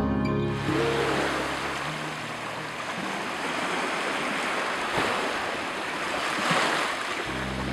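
Small waves washing onto a sandy beach, a steady rush of surf that swells a little past the middle. Background music fades out in the first second or so and comes back near the end.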